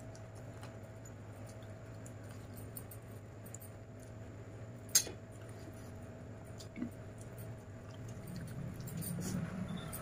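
Eating rice and chicken by hand from a stainless-steel plate: fingers mixing and squishing the food, with small clicks against the plate and one sharp click about halfway, then chewing near the end.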